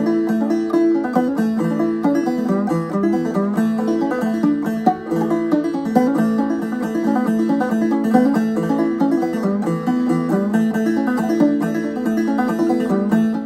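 Banjo playing a tune, a quick, steady stream of plucked notes.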